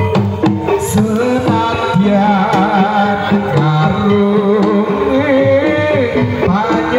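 Live Javanese jaranan (kuda lumping) gamelan music: kendang hand drums beating under a wavering singing voice and sustained pitched instruments.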